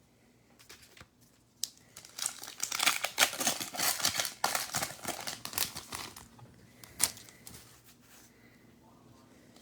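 Foil wrapper of a 2022 Diamond Kings baseball card pack being torn open and crinkled for a few seconds, followed by a single sharp crackle about seven seconds in.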